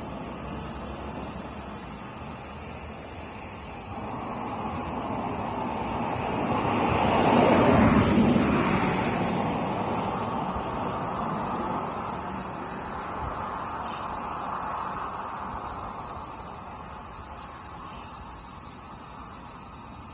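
Cicadas singing in a steady, high-pitched chorus. Under it a car passes, rising and fading, loudest about eight seconds in.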